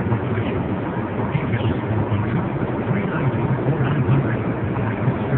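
Steady interior drone of a Ford Focus driving along: engine and road noise heard inside the cabin, with a low hum that holds level.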